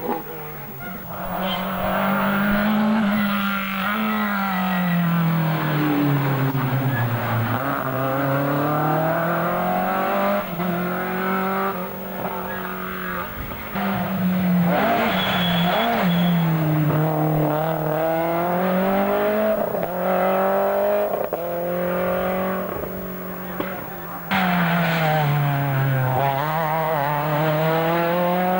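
Rally car engines revving hard on a tarmac stage. The pitch climbs and drops again and again through gear changes as cars pass one after another.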